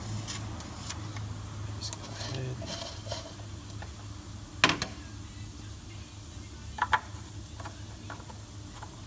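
Plastic oil funnel lifted out of the engine's oil filler neck, with a single sharp knock about halfway through. Then a couple of light plastic clicks as the oil filler cap is fitted back on. A low steady hum runs underneath.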